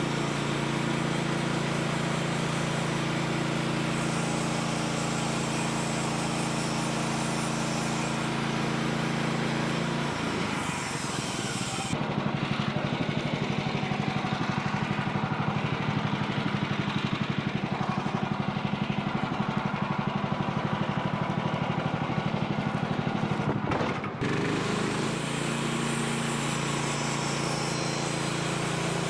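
Gas engine of a portable bandsaw sawmill running steadily at speed. About ten seconds in its note drops to a slower, pulsing run for roughly twelve seconds, then it comes back up to its steady speed.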